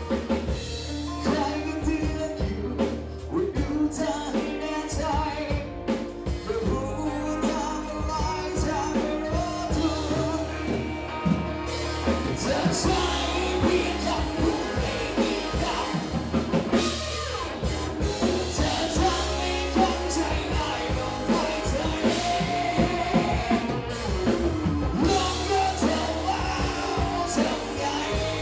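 A man singing a Thai rock song live into a handheld microphone over music with drums. The accompaniment grows fuller and brighter about twelve seconds in.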